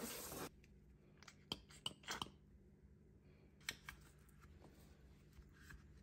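Small metal rifle parts of a Q Honey Badger upper clicking and tapping as they are handled and set down on a table, with a brief hiss at the start and a few sharp clicks in two small clusters. Near the end there is faint rubbing as a cloth wipes the upper receiver.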